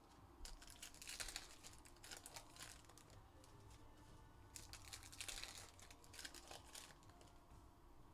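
Faint crinkling and rustling of trading-card pack wrappers and cards being handled, in several soft bursts.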